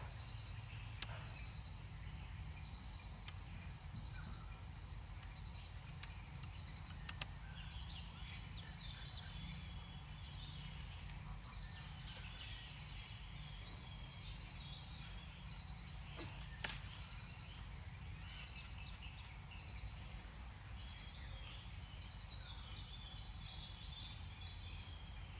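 Open-air insect and bird ambience: a steady high insect drone with stretches of bird chirping about a third of the way in and again near the end. A few sharp clicks sound over it, one loudest about two-thirds of the way through.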